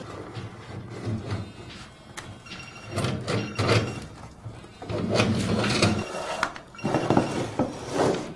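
Large plastic tub dragged across the floor in several short pulls, scraping and bumping, with knocks as it catches on the door frame and threshold.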